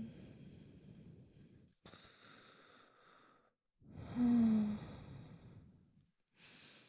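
A woman breathing slowly and deeply as she drifts off to sleep, close to the microphone: soft breaths in and out, with a voiced sigh a little after four seconds.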